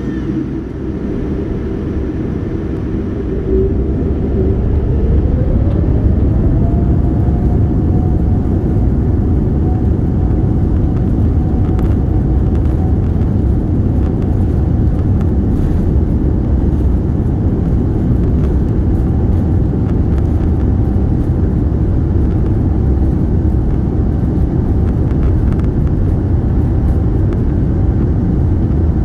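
Boeing 787-9's GEnx-1B turbofan engines spooling up to takeoff thrust, heard from inside the cabin: about four seconds in the sound grows louder and a whine rises, then holds steady over a heavy rumble as the airliner accelerates down the runway.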